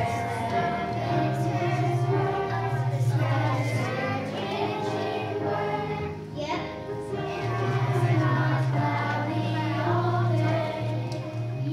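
Children's choir singing a song, with instrumental accompaniment holding steady low notes.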